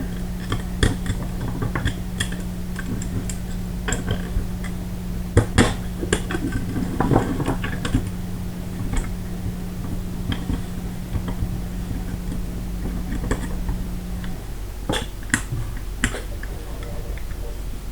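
Small sharp clicks and taps of an AR hammer and its spring being worked into a 3D-printed lower receiver by hand, scattered and irregular. A steady low hum runs underneath and stops about three-quarters of the way through.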